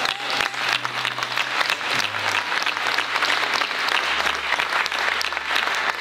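Congregation applauding in a dense, steady patter of claps, with a few low held notes sounding underneath that step down in pitch twice.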